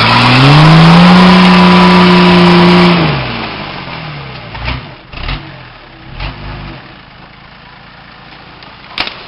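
Nissan Patrol Y60's 4.2-litre diesel engine revving up and held at high revs for about three seconds as the truck climbs a steep dirt bank, then dropping back to a low, quieter running. A few low thumps follow, and there is a sharp click near the end.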